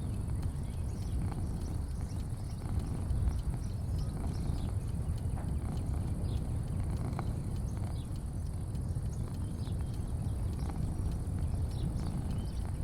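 Outdoor ambience: a steady low rumble with a faint steady high hiss, and scattered faint short chirps and ticks throughout.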